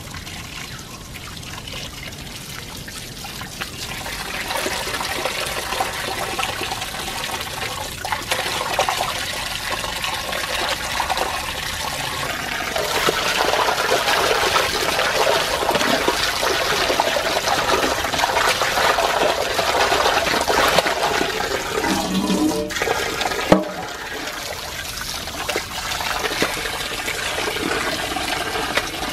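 Tap water pouring into a steel bowl of raw chicken pieces as they are washed and rubbed by hand, the water splashing and sloshing. The flow grows louder a few seconds in and louder again about twelve seconds in. A single sharp knock comes about twenty-four seconds in, and the sound is quieter after it.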